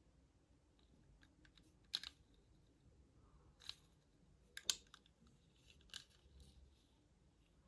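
A handful of sharp, isolated clicks and taps against near silence, the sound of hands handling Hot Wheels die-cast toy cars and their plastic packaging.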